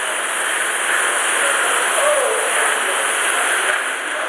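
A steady, even rushing noise, with a brief faint pitched sound about two seconds in.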